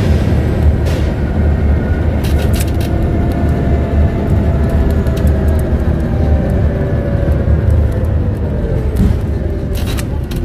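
Scania N94UD Omnidekka bus with a ZF automatic gearbox, heard from inside while driving: a steady low rumble with a faint whine that slowly falls in pitch over the second half as the bus eases off. A few short clicks and rattles from the body come through now and then.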